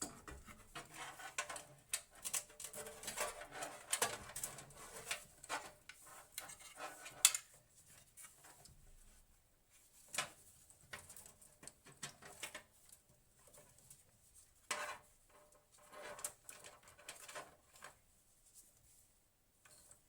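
Computer hardware being handled during an SSD install: a busy run of small clicks and taps for several seconds, with one sharper click about seven seconds in, then sparser clicks.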